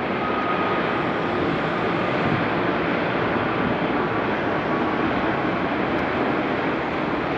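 Jet engine noise of a Boeing 787 airliner rolling along the runway after landing: a steady, loud rushing with a faint high whine that slowly fades.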